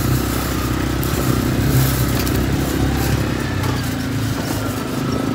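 Engine of an off-road utility vehicle running steadily as it drives along.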